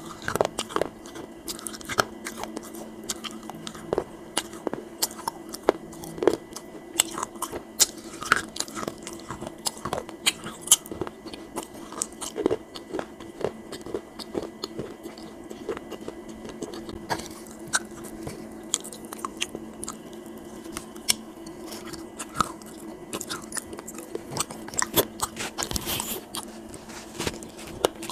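Close-miked biting and chewing of dry clay pot pieces: an irregular run of crisp crunches, several a second, over a faint steady hum.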